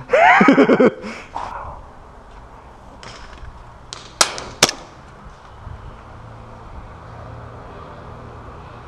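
A short vocal cry, then two sharp airsoft gun shots about half a second apart, followed by a faint low steady hum.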